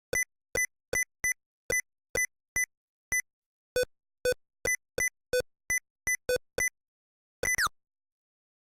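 Windows Sticky Keys sound effects: a quick string of about seventeen short, identical beeps, roughly two a second. Near the end comes a double beep with a tone that slides down in pitch.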